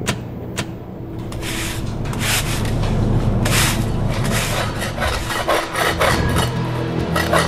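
Push broom and a flat shovel scraping hay, feed and manure across a concrete barn floor in repeated swishing strokes, coming faster near the end. A few sharp clicks come first, and a steady low hum from the barn's ventilation fans runs underneath.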